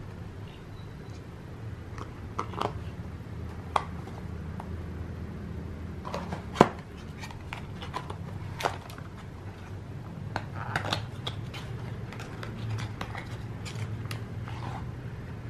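Hands handling skincare packaging on a tabletop: a plastic cream-jar lid, cardboard boxes and a clear plastic wrapper, giving scattered taps, clicks and rustles, the sharpest click a little past halfway. A steady low hum runs underneath.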